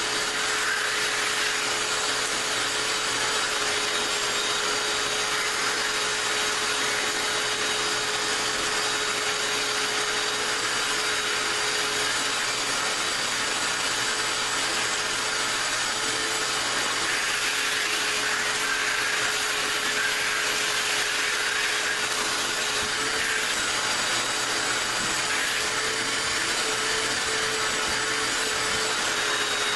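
Wet/dry vac running steadily with a constant whine, sucking water out of wet upholstery fabric. Its pitch wavers briefly a few times in the later part.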